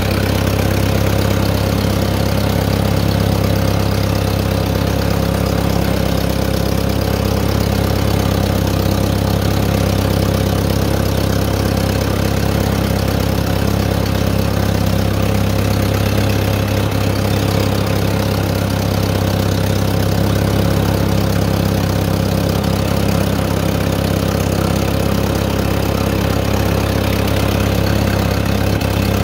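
1955 Massey Ferguson TO-35's four-cylinder gasoline engine running at a steady, even speed.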